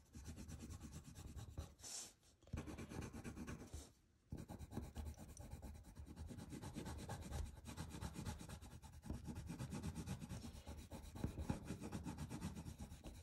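Colored pencil shading on paper: quick back-and-forth strokes of the pencil rubbing across the sheet, pausing briefly about two and four seconds in.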